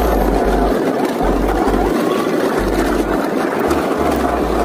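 Shallow creek water running over rocks, a steady rushing noise, with wind buffeting the microphone in low, on-and-off rumbles.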